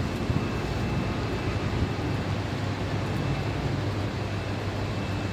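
Steady low rumbling noise with a hiss over it, even throughout and without distinct events.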